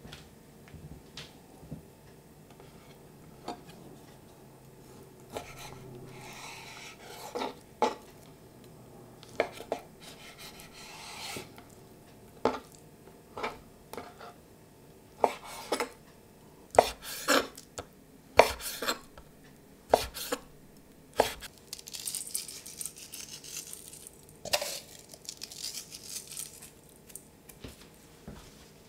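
Chef's knife cutting raw chicken breast on a wooden chopping board: irregular sharp knocks of the blade on the board, some in quick runs.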